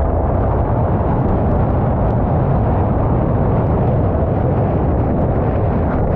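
Steady, loud wind buffeting on the camera microphone of a moving bicycle, a dull, even rush with no distinct knocks.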